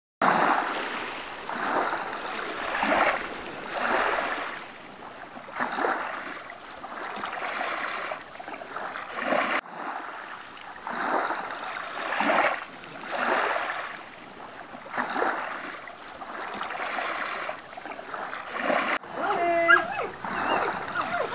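Small waves lapping and splashing against a wooden dock, rising and falling about once every second or so, with a few short higher-pitched sounds near the end.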